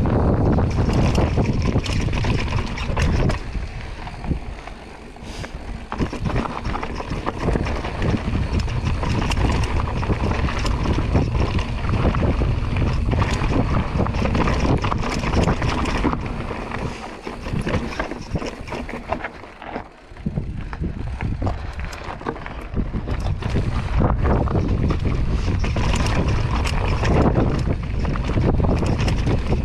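Giant Stance 29 2 mountain bike rattling and clattering over rocky trail, with strong wind buffeting on the camera microphone. The noise eases briefly about five seconds in and again around twenty seconds in.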